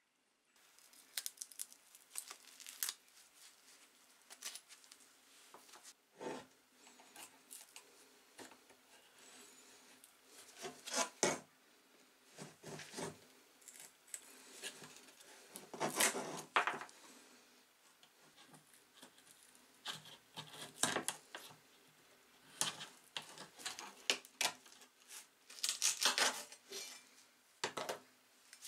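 Irregular metal clinks, scrapes and rattles of hand tools working on a billhook's handle and of its loose stacked washers being slid off the tang onto a wooden workbench, with several louder clatters.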